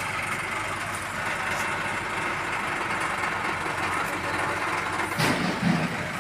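An engine idling steadily, with a sharp knock about five seconds in.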